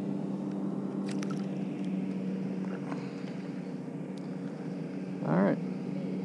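Steady, even-pitched hum of an engine running in the background. A short rising vocal sound comes about five seconds in.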